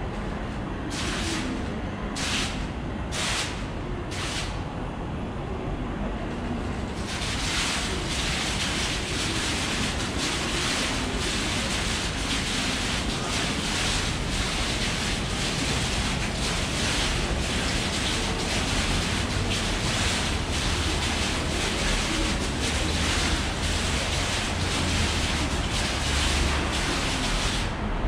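Water from a Space Printer water clock's nozzle bar falling as lines of droplets and splashing into its basin. There are four short splashing bursts about a second apart, then a steady splashing hiss from about seven seconds in that stops just before the end, over a low background rumble.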